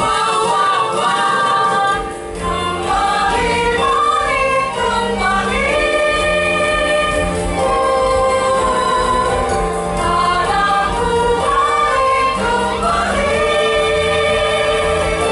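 Mixed choir of women's and men's voices singing through microphones and a PA, over an instrumental backing with a bass line that changes note about every second.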